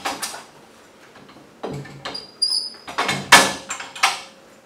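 The rip fence of a DeWalt cordless table saw being slid along its telescoping rails and locked: a series of sliding scrapes and plastic-and-metal clacks, with a brief high squeak just past halfway and the loudest clack about three and a half seconds in.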